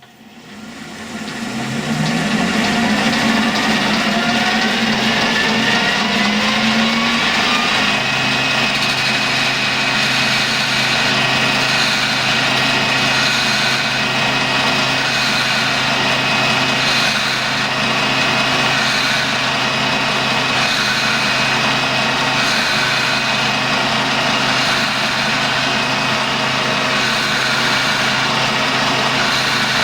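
Colchester lathe starting up: the motor and headstock gearing whine rises in pitch for several seconds as the spindle comes up to speed, then runs at a steady pitch.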